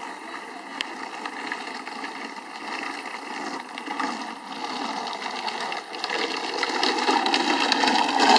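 Small hard plastic wheels of a child's ride-on toy car rolling and rattling over asphalt, growing louder as it comes closer, with a clatter of small clicks near the end.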